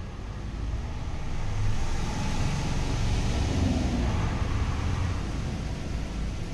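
A road vehicle passing by, its engine and tyre noise swelling to a peak about three to four seconds in and then fading.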